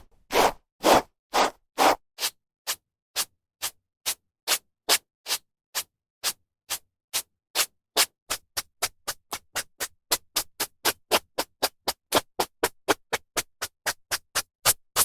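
Hairbrush strokes through hair: a steady series of short brushing swishes, each separated by a moment of silence. They come about two a second at first and quicken to about three or four a second after the middle.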